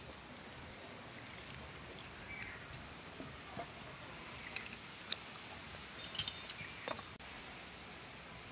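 A few faint, sharp clicks and clinks of metal kitchen utensils and glassware being handled, spread over several seconds above a low background hiss.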